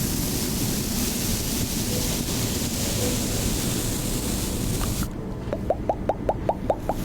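Steady rushing noise like surf or moving water. About five seconds in, the hiss thins and a quick run of about nine short rising blips follows.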